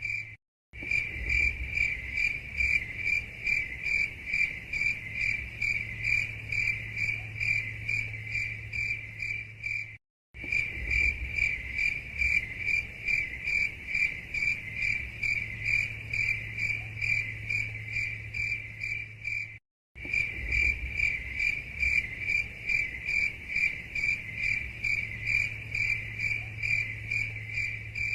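Cricket chirping steadily in an even, high-pitched pulse of about three chirps a second, over a faint low hum. The sound cuts out completely for a split second about every ten seconds.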